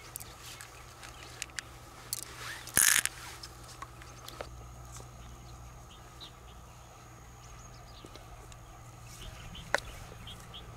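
Small clicks and rustles of freshwater mussel shells and pearls being handled, with one louder, brief scraping rustle about three seconds in and a sharp click near the end.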